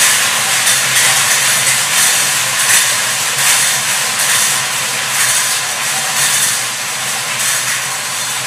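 Several hand-cranked wire lottery cages spinning together, their numbered balls tumbling and clattering inside in a dense, steady rattle that eases slightly near the end.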